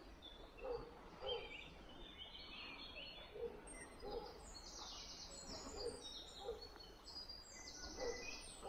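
Faint birdsong: small birds chirping high, with a lower two-note call repeating every two to three seconds.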